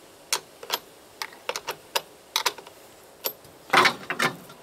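Irregular sharp metallic clicks and clinks as cable ring terminals and terminal nuts are taken off the posts of deep-cycle batteries by hand, with a louder, longer clatter about four seconds in.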